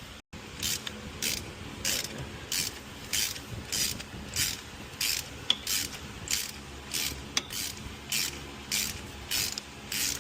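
Hand ratchet wrench being worked back and forth, its pawl clicking in a short burst on each return stroke, about one and a half strokes a second in an even rhythm.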